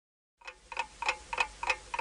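Clock-ticking sound effect marking a quiz answer countdown, starting about half a second in out of silence and ticking evenly about three times a second.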